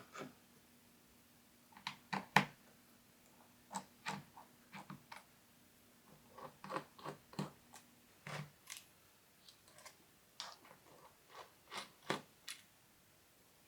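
Light, irregular clicks and ticks of a small screwdriver backing out the screws on the bottom case of a MacBook Air, with the small metal screws being handled.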